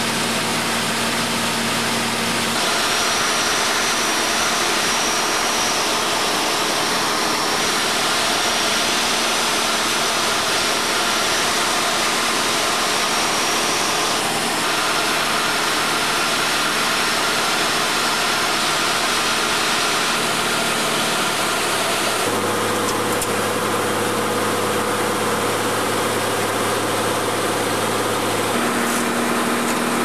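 Light aircraft's engine and propeller droning steadily, heard from inside the cabin, with its tones shifting slightly a few times.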